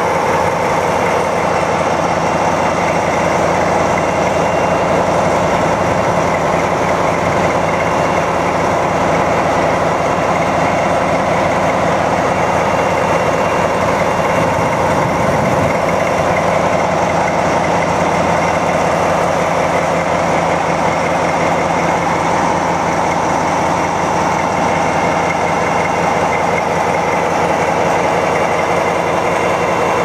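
DB class 225 diesel-hydraulic locomotive's diesel engine idling steadily, heard up close beside its engine-room grilles.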